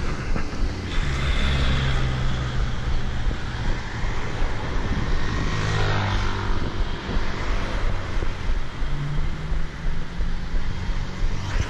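Road traffic: cars driving along a busy multi-lane street, a steady engine and tyre noise, with one vehicle passing close by about halfway through.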